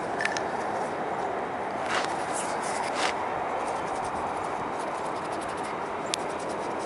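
Small plastic vehicle speed sensors handled and rubbed against each other as lube is worked onto the new one, giving a few short clicks and scrapes over a steady background rush.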